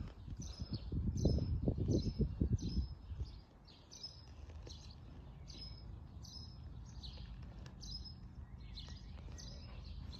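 A bird chirping over and over, short high chirps a little under a second apart, over a low rumble that is loudest in the first three seconds.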